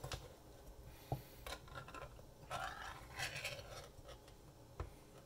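Pull-tab lid of a metal food can being peeled back and torn off the rim: faint scraping and tearing of thin metal, with a few sharp clicks.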